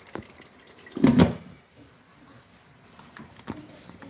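A window being opened: a few light clicks and one louder thump and scrape about a second in.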